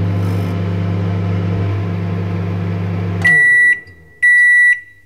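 Microwave oven running with a steady low hum, which stops about three seconds in; the oven then beeps twice, high and even, its end-of-cycle signal that heating is done.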